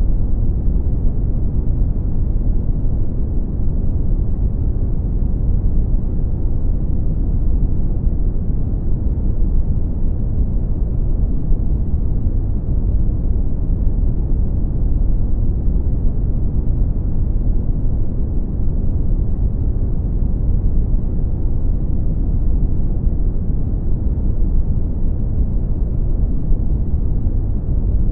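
Brown noise: a steady, deep rumbling hiss with most of its weight in the low end and little treble, unchanging throughout.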